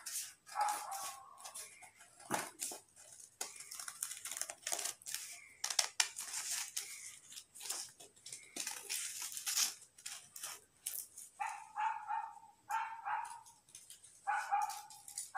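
Scissors cutting a sheet of colour paper: a quick run of snips and paper rustling. Short pitched cries sound at the start and several times in the last few seconds.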